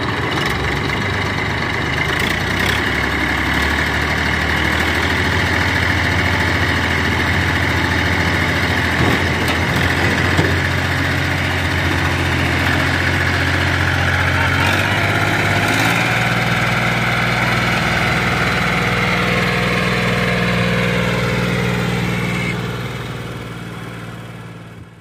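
TAFE tractor's diesel engine running steadily, its low engine note shifting in pitch about sixteen seconds in, then fading out near the end.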